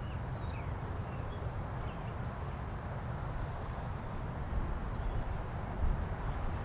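Outdoor ambience: a steady low rumble with a few faint bird chirps in the first couple of seconds, and a brief louder bump near the end. No siren tone is heard.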